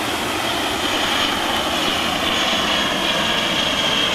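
A-10 Thunderbolt II's twin General Electric TF34 turbofan engines in a slow fly-by: a steady high-pitched whistle over a broad rushing jet noise, growing slowly louder.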